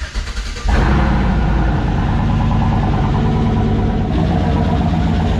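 Turbocharged Chevrolet Silverado engine cranking briefly, then catching under a second in and running steadily, heard from inside the cab. This is its first start after a turbo kit install and a run of fuel injector problems.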